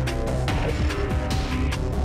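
Background music with a fast, steady drum beat over held tones.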